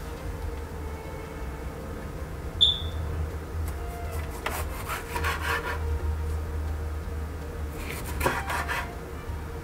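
Knife cutting through a tomato onto a wooden cutting board in two short runs of strokes, about halfway in and near the end, over a low steady hum. A single sharp clink with a brief ring comes a few seconds before the cutting.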